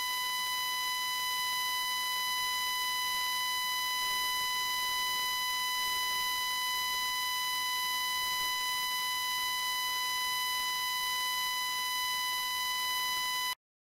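A steady high-pitched electronic tone with a ring of overtones, feedback from a failed microphone. It cuts off abruptly near the end into dead silence.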